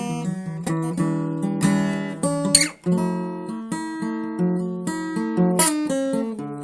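Acoustic guitar playing an instrumental piece: a run of plucked notes and chords, with a sharp strum about two and a half seconds in and a brief break just after.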